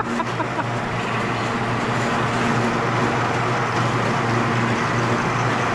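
Electric wire-stripping machine running steadily as thick 500 MCM copper cable feeds through it: a constant low motor hum under a broad rushing noise.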